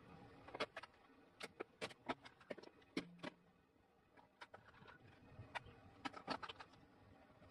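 Plastic cups and lids cracking and popping as a car tyre rolls over them: faint, irregular sharp cracks and clicks, about a dozen.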